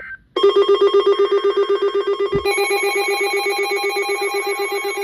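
Electronic emergency alert tones: a loud, rapidly pulsing alarm tone, about ten pulses a second, starts about half a second in, and a second, higher tone joins it about halfway through, overlapping like several alert receivers sounding at once.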